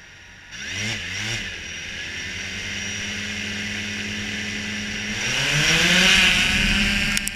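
DJI Phantom quadcopter's motors starting, the propellers spinning up with two short rising whines and then running at a steady hum. About five seconds in the pitch rises and it grows louder as the drone throttles up to lift off. A sharp click comes just before the end.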